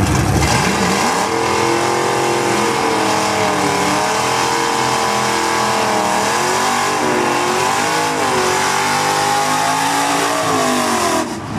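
Ford drag car doing a burnout on the start line: its engine is held at high revs, rising about a second in and then wavering up and down as the throttle is worked, over the hiss of the rear tyres spinning.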